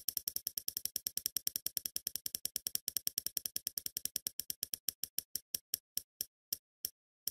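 Spinning prize-wheel ticking sound effect: rapid clicks, about ten a second at first, that slow steadily to about two a second as the spinner winds down.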